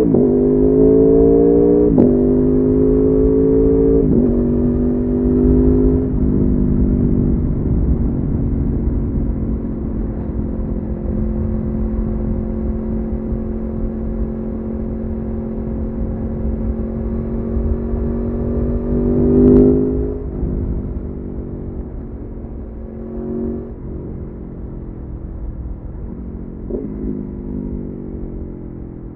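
Aprilia Tuono motorcycle engine accelerating hard through the gears, its pitch dropping at each quick upshift about every two seconds, then cruising at steady revs. About two-thirds in it briefly revs up, then it slows and quietens, with a couple of short throttle blips on downshifts.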